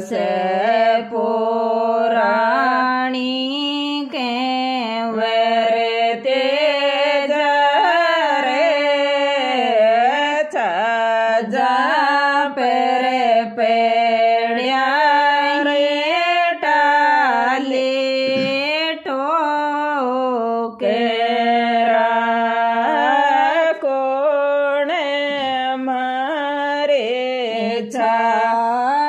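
A woman singing a Rajasthani folk devotional song to Tejaji in long, sliding, melismatic phrases with brief pauses for breath.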